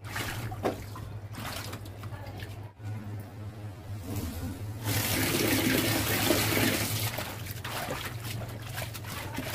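Water splashing in a stainless-steel kitchen sink as leafy greens are swished and rinsed by hand, with a louder rush of water for about two seconds midway, then softer splashing again. A steady low hum runs underneath.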